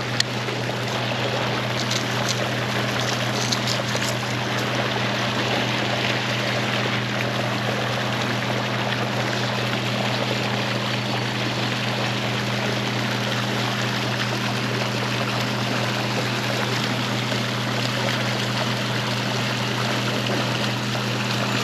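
Warm-water discharge outflow gushing steadily into the river, a constant rush of water with a low steady hum beneath it. A few light clicks about two to four seconds in.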